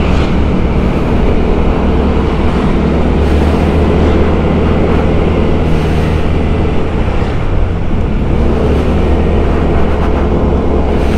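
Small white-plate (under 250 cc) motorbike's engine running steadily while being ridden, an even drone with no change in pace.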